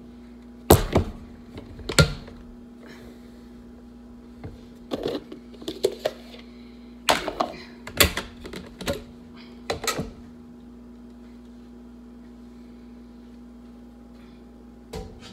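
Hard plastic clacks and knocks as a Ninja blender pitcher and lid are handled and a plastic bowl's lid is taken off: a scatter of sharp clicks through the first ten seconds, then only a steady low hum.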